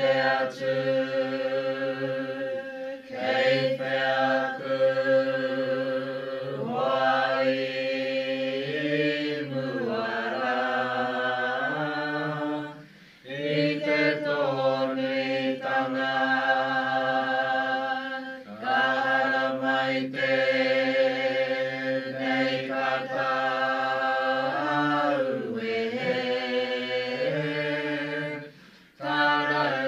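Unaccompanied Māori mōteatea chant: voices hold long notes on a near-level pitch and slide up or down at the ends of phrases, with brief breath pauses about 13 seconds in and near the end.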